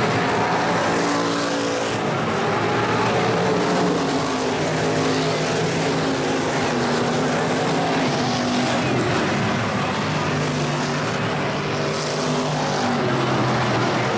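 Several IMCA Stock Car V8 engines racing together, their overlapping notes rising and falling in pitch as the cars accelerate and lift around the oval, with one car passing close about halfway through.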